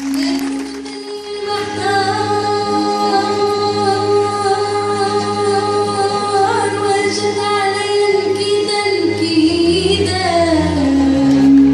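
Live Arabic ensemble music with singing, violins and qanun: a long note held for several seconds over a steady accompaniment, sliding down shortly before the end.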